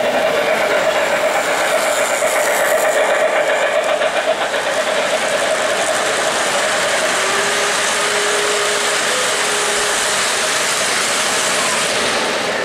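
O-gauge three-rail model train running along the track, its wheels and motor making a steady running noise as the cars pass close by.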